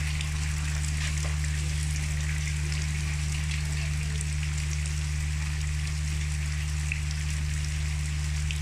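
Steady rain falling on wet ground and puddles, with scattered drop ticks and a steady low hum underneath.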